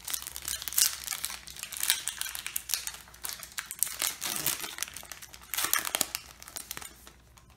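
Foil trading-card booster pack wrapper crinkling and tearing as it is opened and crumpled by hand, a dense crackle that dies away near the end.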